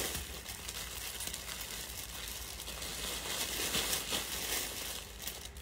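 Crinkling and rustling of plastic-bagged clothing being handled and searched through on a shelf.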